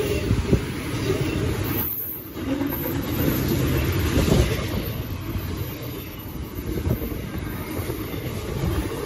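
Freight train's container wagons and vans rolling past: a steady rumble of steel wheels on rail, with irregular clacks of wheels over the rail joints.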